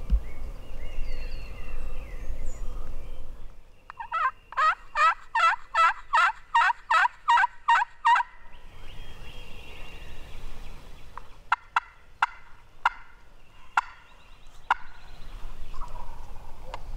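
Wild turkey gobbling: a rattling string of about a dozen notes lasting about four seconds, starting about four seconds in. Later come several sharp, separate clicks, and faint bird chirps can be heard before the gobble.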